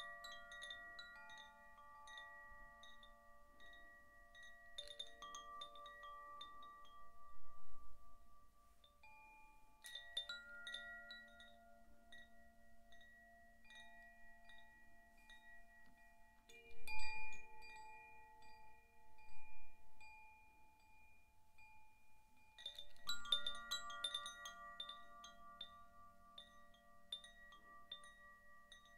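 Zaphir Sufi chime struck from inside as its hanging disc sways: a new cluster of light strikes every four to six seconds, each leaving several notes ringing on and overlapping into a soft sustained chord.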